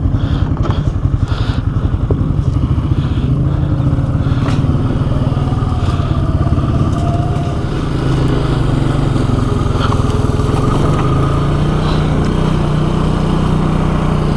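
ATV engine running steadily at low revs, with a few knocks and clatters. The engine note dips briefly about eight seconds in, then picks up a little higher.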